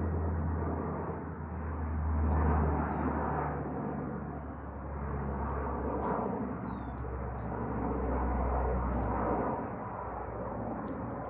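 Lockheed C-130K Hercules four-engine turboprop flying over: a deep propeller drone under a rushing engine noise, swelling twice and then easing off. Birds chirp faintly in the background.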